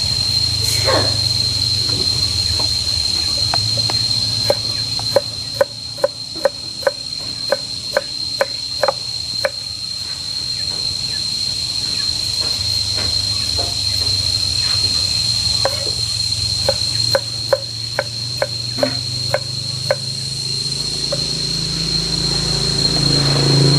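Kitchen knife chopping tomatoes on a cutting board: two runs of even taps at about three a second, the first starting about four seconds in and the second in the second half. A steady high whine runs underneath.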